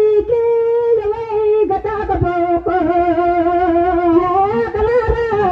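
A woman singing solo into a microphone, a single voice holding long, wavering notes, dropping to a lower note about two seconds in and rising briefly near the end.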